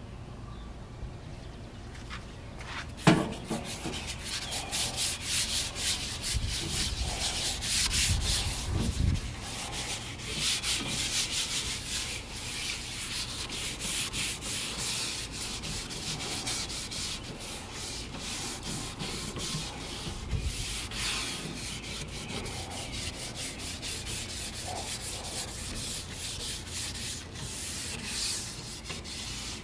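A paper towel rubbed back and forth over the oiled flat-top plate of a Suburban Elite Series griddle, spreading olive oil to season it: a continuous scratchy rubbing. About three seconds in, just before the rubbing starts, there is a single sharp knock, the loudest sound.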